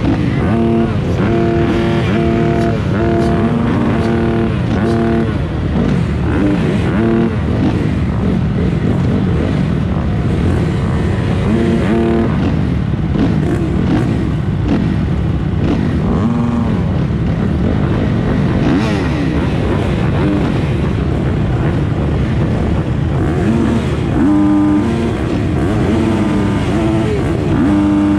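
A pack of motocross bike engines running and being revved at the start line. Their pitch rises and falls repeatedly as the throttles are blipped.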